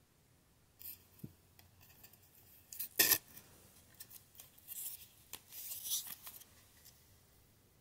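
Handling noise of a plastic toy plane-launcher gun and a flat white toy plane: a few light clicks, one sharp plastic click about three seconds in, then rubbing and scraping as the plane is handled against the gun.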